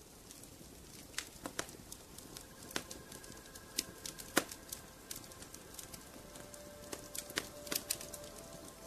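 Soft background music: scattered, irregular light clicks, with faint held notes coming in about three seconds in and a lower note joining about six seconds in.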